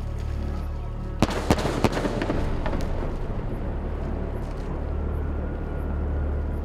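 Aerial firework shell bursting: a quick run of three or four sharp bangs about a second in, followed by crackling that fades over the next second. A steady, low, droning background music runs underneath.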